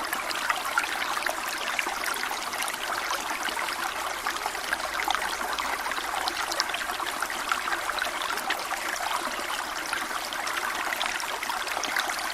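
Small waterfall running steadily: an even rush of falling water with many little splashes, light on bass.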